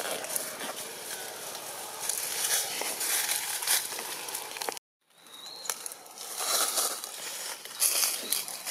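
Crackling, rustling outdoor noise with scattered faint clicks, broken by a sudden dropout to silence for a moment about five seconds in.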